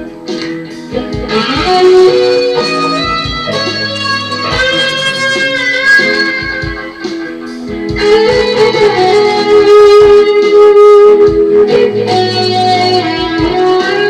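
Electric guitar playing a lead line of held notes, some of them sliding in pitch.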